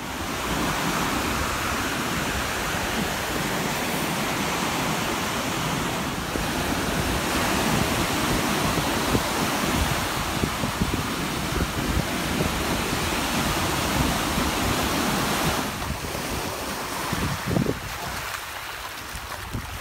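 Waves breaking in surf, with wind buffeting the microphone. About three-quarters of the way through it gives way to quieter, smaller waves lapping at the shore.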